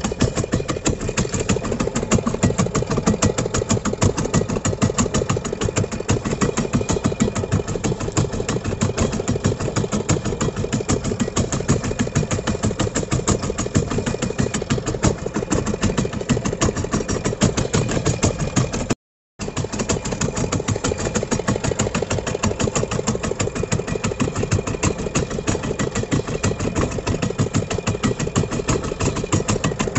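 A fishing boat's engine running steadily with a fast, even beat. It cuts out for a moment about two-thirds of the way through and then carries on as before.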